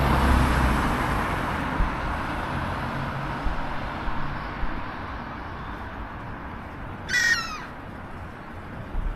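Road traffic passing on a wet road, its tyre hiss and engine hum fading away. About seven seconds in, a single short bird call rings out once.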